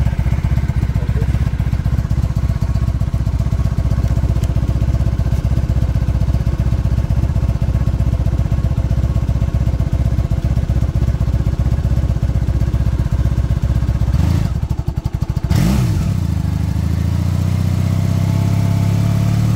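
Honda Magna's 750 cc V4 motorcycle engine running at idle with an even low beat. About fifteen seconds in it is revved once, the pitch sweeping up and back down, and then it runs on with a smoother, steadier note.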